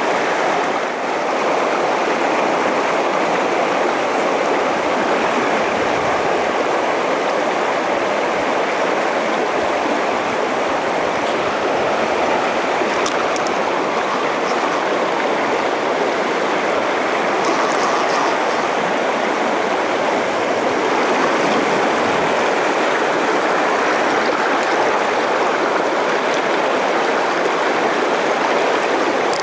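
Fast river current rushing over a shallow riffle: a steady wash of water with no break.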